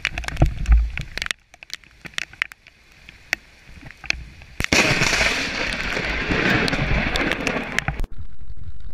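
Crackling clicks and pops, then about five seconds in a sudden loud thunderclap from a nearby lightning strike that rumbles and hisses for about three seconds before cutting off abruptly.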